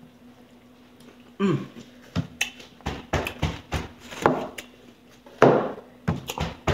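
Close-up eating sounds of someone chewing fried chicken: crisp crunches, wet smacks and clicks in an uneven string, starting about a second and a half in.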